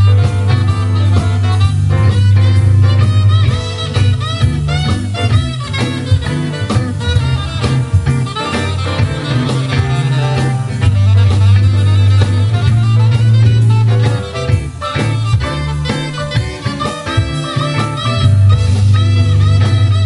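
A small jazz combo playing live: double bass holding deep notes under a drum kit, keyboard and saxophone.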